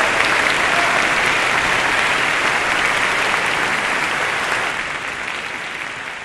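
Large audience applauding, a dense, even clapping that fades away over the last couple of seconds.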